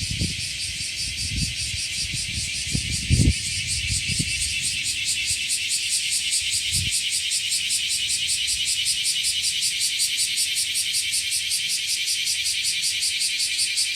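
Cicada calling: a steady, rapidly pulsing high buzz. In the first seven seconds there are a few low thuds.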